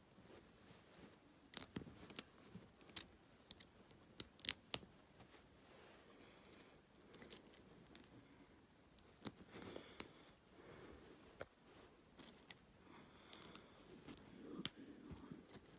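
Small Lego bricks and plates clicking as they are handled, pressed together and set down on a wooden table: irregular sharp clicks with faint rustling between them.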